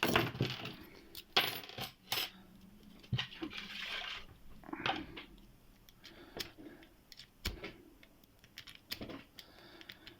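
Qualtec padlocks and a lock pick and tension wrench clinking and rattling as the locks are zipped open, with irregular sharp metallic clicks and short jingles.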